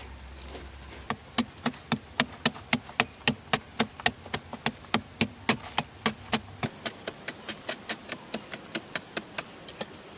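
A fast, even run of sharp knocking strikes, about four a second, starting about a second in and getting quieter over the last few seconds.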